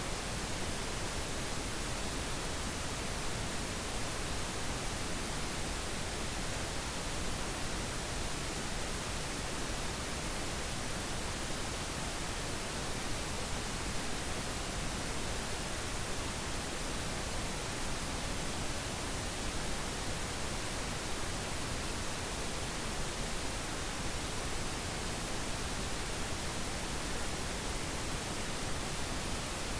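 Steady pink noise: an even, unbroken hiss spread across all pitches, with no changes or events.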